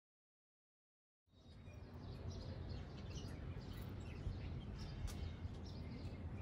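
Dead silence for just over a second, then faint outdoor ambience with small, scattered bird chirps.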